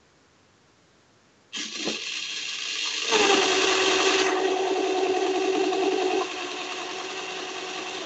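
Claw machine motors running as the claw gantry moves: a steady whirring with a hum, starting suddenly about a second and a half in, louder from about three to six seconds, then easing, heard over a video call.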